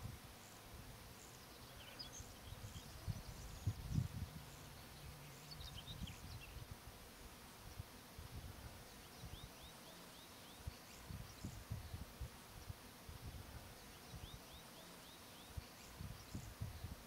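Open-air ambience: small birds chirping at intervals, with two quick runs of about five short curved notes, while gusts of wind rumble on the microphone, the strongest about four seconds in.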